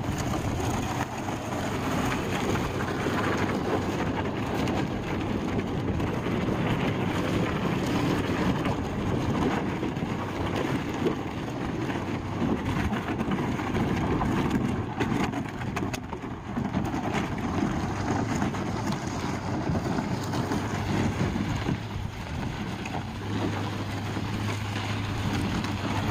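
Plastic pickup-truck bed liner dragged as a sled over gravel and dirt behind a pickup, a continuous scraping, with the truck's engine running low underneath.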